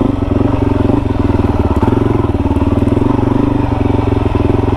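Dirt bike engine running at a steady, moderate pace while riding a dirt trail, heard from on the bike, with a fast even pulsing from its firing strokes.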